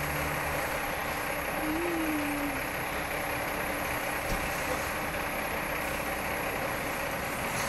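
Engines of a semi-truck and a Subaru wagon running steadily, heard from a distance, as the car strains to tow the stuck truck on an icy street without enough traction.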